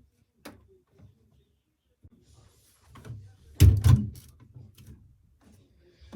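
Zanussi FL984CN front-loading washing machine giving scattered knocks and a faint low rumble, with a loud double thump about three and a half seconds in.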